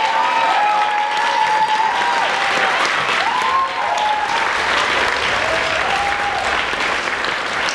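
Audience applauding, with a few long calls from the crowd held over the clapping in the first half.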